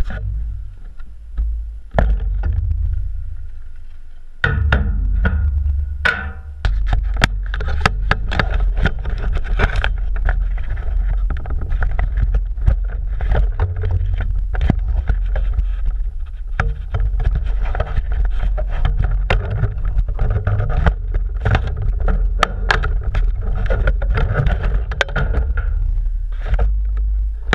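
Wind buffeting an action camera's microphone with a heavy low rumble, with many irregular clicks and knocks from handling, as drone gear and a battery are set down on a wooden bench beside it.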